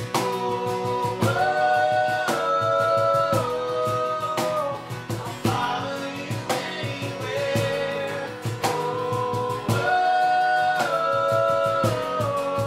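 Worship band playing a song: voices holding long notes that step from pitch to pitch over strummed guitar with a steady beat.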